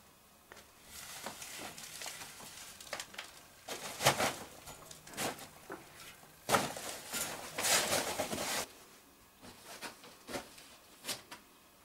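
Rustling and scraping of a plastic sheet, clothing and body against metal gate bars and rock as a person squeezes through a narrow cave gate, in irregular bursts that are loudest in the middle, with a few sharp taps near the end.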